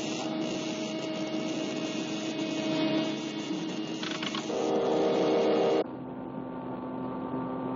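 Electrical machine sound effect on an old cartoon soundtrack: a steady electric hum and crackle. About four and a half seconds in, a louder buzzing tone rises over it and cuts off abruptly near six seconds, leaving a lower, quieter hum.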